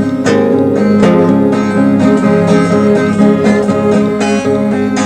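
Unamplified 12-string guitar (a Baldwin 712 semi-acoustic) strummed in a steady rhythm, with no singing, on a 1983 cassette recording.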